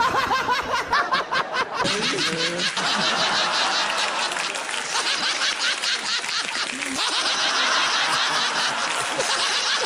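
A man laughing hard in rapid repeated pulses, edited into a ringtone, with abrupt changes between laugh segments about two seconds and seven seconds in.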